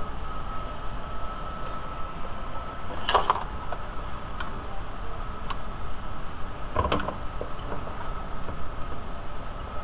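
Metal clanks and light clicks from a windshield wiper linkage assembly being handled on a metal workbench, with two sharper clanks about three and seven seconds in. A steady high hum runs underneath.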